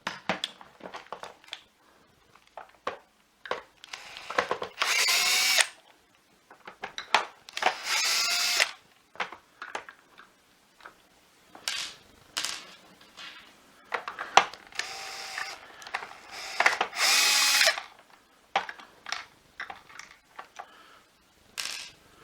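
Power screwdriver unscrewing the screws from a vacuum cleaner's power nozzle housing, in several short runs of about a second each with a steady motor whine. Clicks and knocks of the screws and plastic housing being handled fall between the runs.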